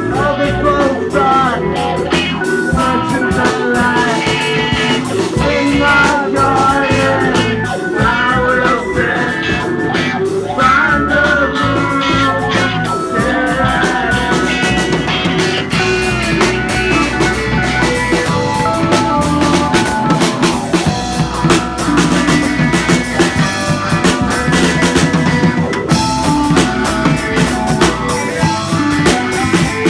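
Rock band playing live at a practice: drum kit with guitar, a guitar line bending in pitch over the beat.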